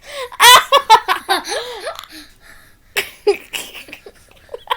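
Children laughing and squealing in play, with a loud high squeal about half a second in and another burst of laughter about three seconds in.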